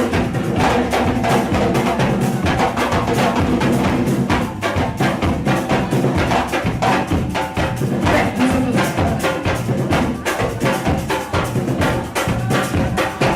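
Loud music with a fast, dense percussion beat.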